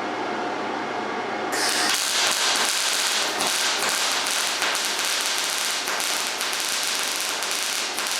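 A steady hum, then about one and a half seconds in a MIG welding arc strikes and crackles continuously as a bead is run, with 75/25 argon-CO2 shielding gas.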